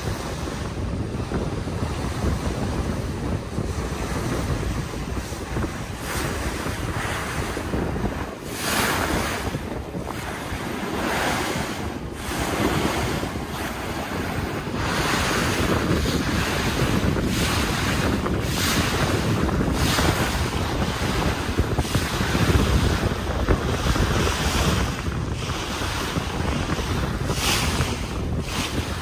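Wind gusting across the microphone in irregular blasts over a steady rush of water, as on the open deck of a moving ferry.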